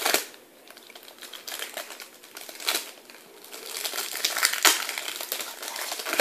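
Trading cards and their crinkly pack wrapper being handled and thumbed through, with a sharp snap a few times. The rustling grows busier past the middle.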